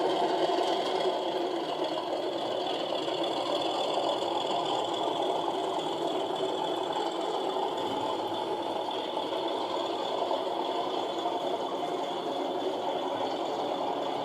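Sound-fitted model diesel locomotive on DCC: the decoder's diesel engine sound, played through the model's small speaker, steps up suddenly at the start and then runs steadily under power.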